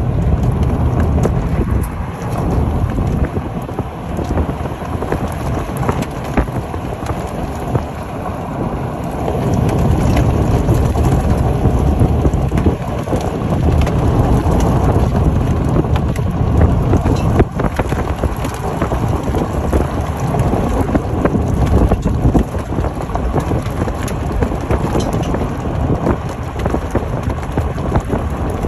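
Steady roar of wind and road noise in a moving car, with a heavy low rumble and many small sharp taps throughout. The rumble grows louder for several seconds in the middle.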